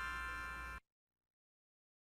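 Synthesizer note from LMMS music software, held and fading slowly, cut off abruptly less than a second in.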